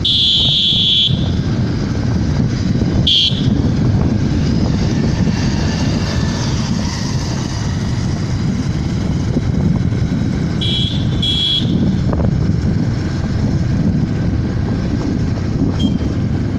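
Cargo truck's engine and road noise, a steady rumble heard from the moving cab, with high horn blasts: one about a second long at the start, a short one about three seconds in, and two quick ones about eleven seconds in.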